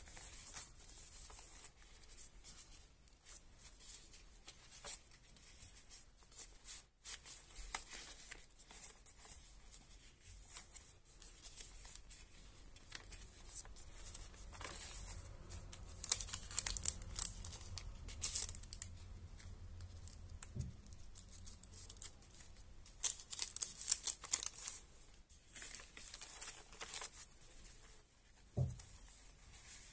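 Stiff paper pages of a handmade junk journal rustling and crinkling as they are turned and tags and pockets are pulled out, in uneven bursts that grow louder around the middle. A single thump near the end.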